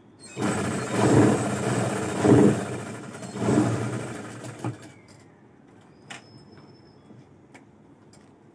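Electric-motor-driven sewing machine running fast and stitching in three surges, then stopping about four and a half seconds in. A few faint clicks follow.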